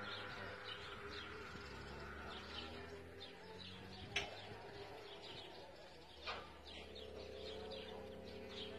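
Faint steady hum of Quiko NEO linear swing gate operators' electric motors driving the two gate leaves open, with birds chirping over it. Two sharp clicks, about four and six seconds in.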